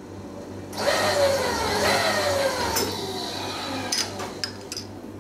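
Milling machine taking a facing cut on metal, the cut noise carrying a wavering, falling squeal. The cutting stops about four seconds in, followed by a few sharp clicks.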